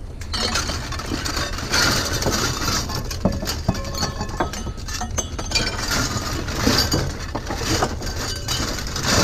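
Loose scrap metal clanking and clinking as pieces are handled and piled together, many irregular knocks, over a steady low rumble.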